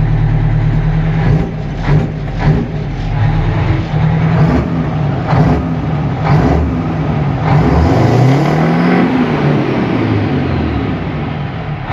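Detroit Diesel 8V92TA two-stroke V8 diesel, blown and turbocharged, revved hard while warm. Several quick surges are followed by a long climb in engine speed about seven and a half seconds in, which then drops back.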